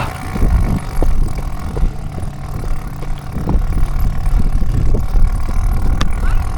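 A motor vehicle's engine running steadily as a low rumble, with a few light knocks.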